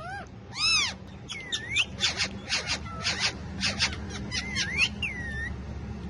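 Ring-necked parakeets calling back and forth: a quick string of short, harsh screechy squawks mixed with a few whistled notes that dip and rise in pitch.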